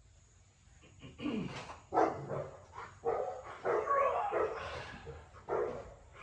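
Dogs barking, a string of barks starting about a second in.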